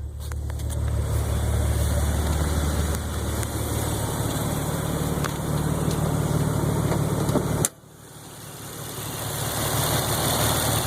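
Nissan 300ZX twin-turbo V6 idling steadily with the hood open, its exhaust heard more than the engine itself, and hardly any lifter tick after the lifters were refurbished. The sound drops away abruptly about eight seconds in and comes back gradually.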